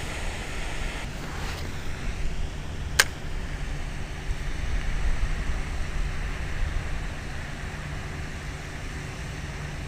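Steady low outdoor rumble with wind on the microphone, and one sharp click about three seconds in.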